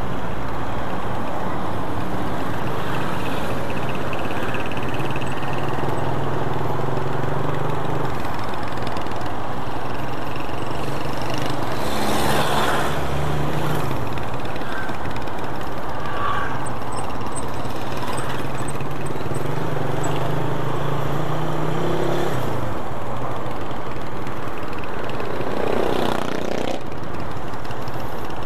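Motorcycle riding in traffic: a steady rush of wind and road noise over the bike's low engine hum, with the engine note of nearby vehicles briefly rising and falling as they pass, twice.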